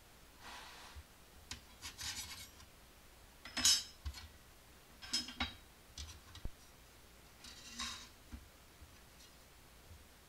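Parts of a fanless PC case being handled on a wooden desk: the clear plastic packaging tray and finned metal heatsink side panels sliding and being set down. The result is a series of short scrapes and rubs with a few sharp clicks, the loudest a little under four seconds in.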